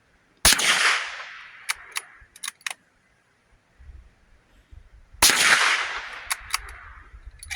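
Two gunshots about five seconds apart, each with a long echoing tail, and a few sharp clicks after each shot.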